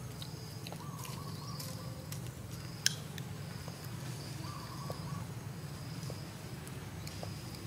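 Outdoor ambience: a steady low hum under short, thin, level-pitched calls from small animals in the background, coming and going every second or two. One sharp click stands out about three seconds in.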